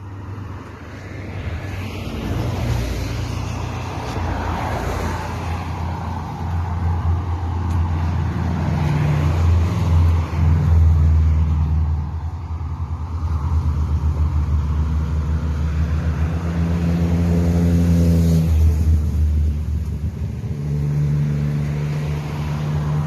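Motor vehicle engine running steadily for the whole stretch, its low drone stepping up and down in pitch a few times as the engine speed changes.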